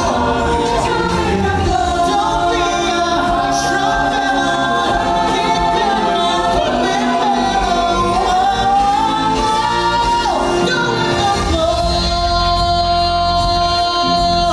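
Musical number from a stage show: a group of voices singing long held notes in harmony over backing music.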